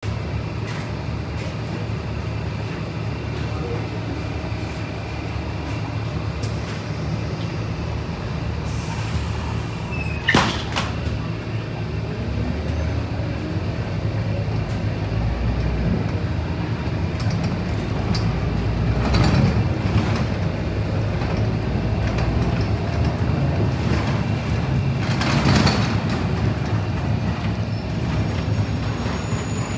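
Inside a Scania K270UB city bus under way: a steady low engine and road rumble. A sharp knock comes about ten seconds in, and the noise swells twice, at about nineteen and twenty-five seconds.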